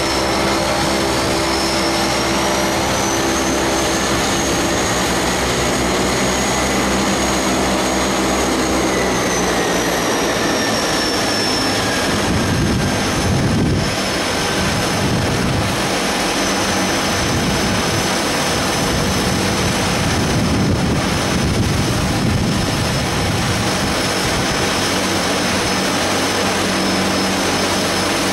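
Jet airliner engines running, with a steady rumble throughout. A high turbine whine rises over the first few seconds, holds, then falls away about ten seconds in.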